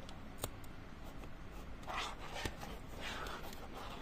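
Hands handling a black plastic compact film camera: rubbing against the body and small plastic clicks, a sharp one about half a second in and another about two and a half seconds in, over a steady low hum.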